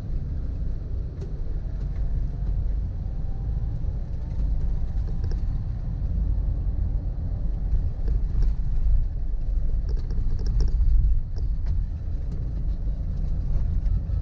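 Steady low rumble of a vehicle on the move: road and engine noise, with a few faint clicks and knocks.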